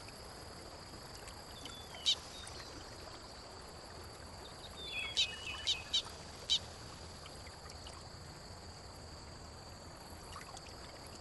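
Wood ducks calling during courtship: short, high, thin whistled calls, one about two seconds in and a quick run of four or five between about five and six and a half seconds in, over a faint steady hiss.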